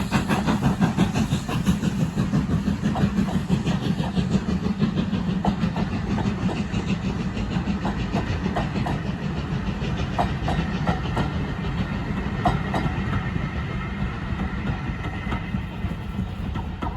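A heritage train running past with a steady rumble that slowly fades, its wheels clicking over rail joints.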